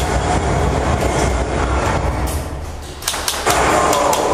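Airsoft gunfire: a quick string of sharp cracks about three seconds in, over a steady low rumble.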